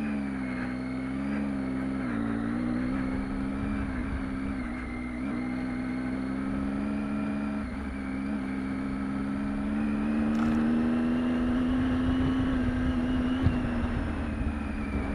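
Triumph Tiger 800 XCx's three-cylinder engine running at low, steady revs as the motorcycle rides a gravel dirt road, its pitch wavering slightly with small throttle changes. It grows a little louder about ten seconds in. There is one sharp knock near the end.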